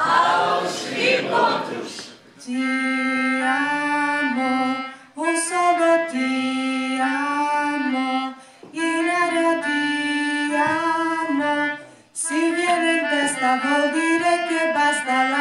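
A few voices shouting and cheering for about two seconds, then a woman singing with a melodica playing along in long held notes. The music comes in phrases with short breaks between them.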